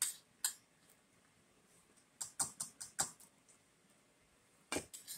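Metal spoon and fork clicking and scraping against a bowl and plate while eating: a click at the start, another about half a second in, a quick run of five or six around two to three seconds in, and two more near the end.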